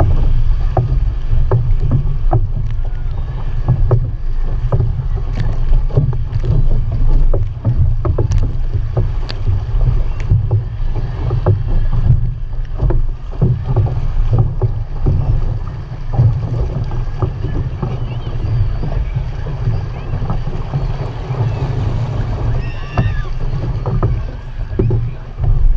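Outrigger canoe under way, racing: water rushing and slapping along the hull heard as a heavy, steady low rumble through the stern-mounted waterproof camera, with repeated splashes and knocks from the crew's paddle strokes.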